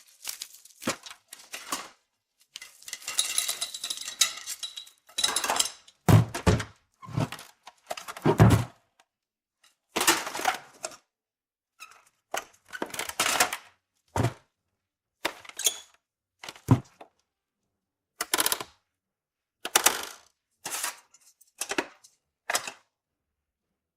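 Cartoon foley: a string of short clatters, knocks and clinks of small objects being handled, each one separate with silent gaps between. A longer rattle comes a few seconds in, and there are heavier thuds a little later.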